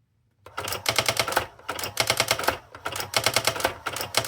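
Brother SX-4000 electronic typewriter running its correction function: bursts of rapid mechanical clicking, roughly one burst a second, starting about half a second in. Each burst is the printwheel striking through the correction tape to lift off one letter of the typed word.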